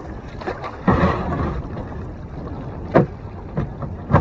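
Kayak paddle strokes splashing the water, with a few sharp knocks, the loudest about three seconds in and another near the end, over a low wind rumble on the microphone.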